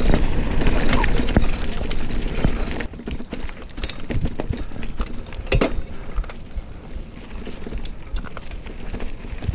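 Motobecane mountain bike rolling fast over leaf-strewn dirt singletrack, its tyre noise mixed with wind buffeting the microphone. The sound is loud for about three seconds, then quieter, with scattered clicks and knocks as the bike rattles over bumps.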